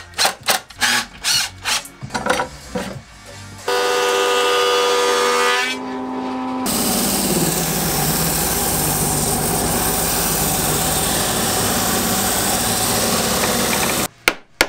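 Cordless impact driver driving screws into OSB in a series of short bursts. Then an electric stationary sander starts with a steady motor tone. From about seven seconds in, a wooden piece is held against it and sanded with a loud, even rasp that stops suddenly near the end.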